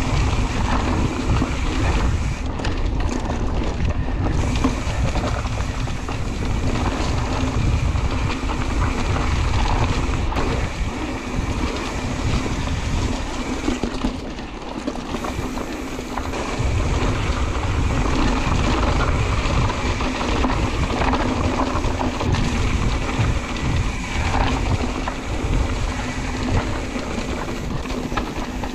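Wind buffeting the microphone of a camera carried on a mountain bike on a cross-country dirt trail, with the rumble of tyres and trail underneath, rising and easing with the riding. A faint steady hum runs through it.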